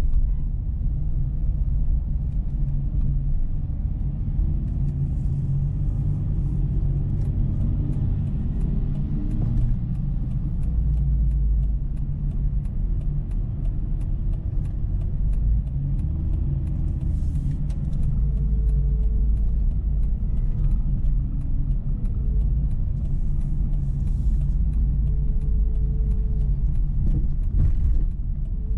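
Dodge Charger 3.5 driving on a road: a steady low rumble of engine and tyres, with faint passing tones, scattered light clicks and a few brief hissing swells.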